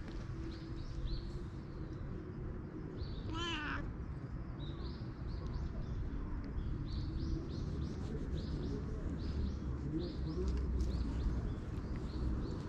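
Small birds chirping in short, high notes again and again, with one louder, harsher animal call about three and a half seconds in, over a low rumble on the microphone.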